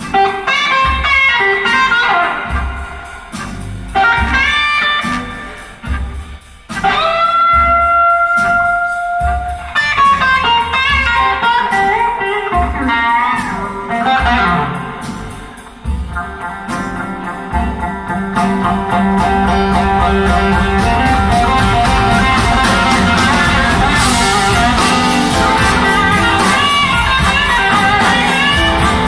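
Live blues band with an electric guitar soloing: sparse phrases with pauses and long held notes at first, then the full band, drums and cymbals included, comes in with a steady loud sound about two-thirds of the way through.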